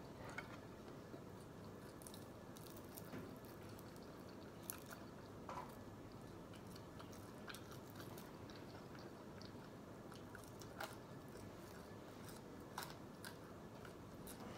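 Faint close-up chewing and mouth sounds of someone eating a cooked chicken drumstick, with a few scattered small clicks and smacks as meat is bitten and pulled off the bone.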